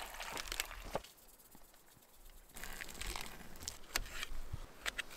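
Water pouring from a jug into a metal camp pot for the first second. After a short pause come a few light clicks and scrapes of a knife cutting small potatoes in a pan.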